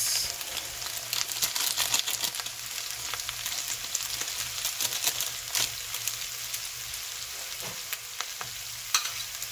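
Bacon fat sizzling in a frying pan under a mound of cooked instant noodles: a steady hiss with scattered sharp crackles and pops.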